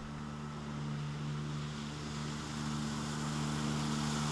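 Motorboat engine running at a steady pitch, growing louder as the boat approaches.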